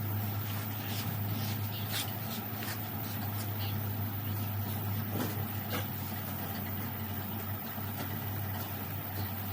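A steady low machine hum with scattered light clicks and knocks.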